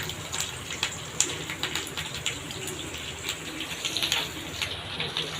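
Marinated chicken 65 pieces deep-frying in a shallow pan of oil: a steady sizzle with irregular sharp crackles and pops.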